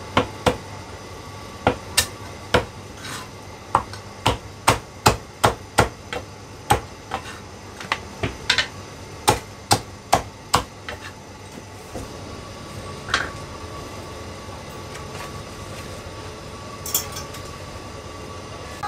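Chinese cleaver chopping a cooked chicken on a round wooden chopping block: a quick, uneven run of sharp chops, about two or three a second, for some ten seconds. After that come only a few scattered knocks.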